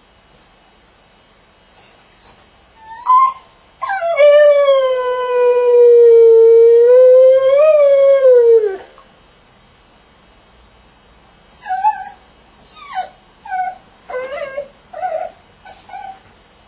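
Dog howling while shut in its crate: a couple of short cries, then one long howl of about five seconds that sags, lifts a little and falls away at the end, followed by a string of about seven short cries.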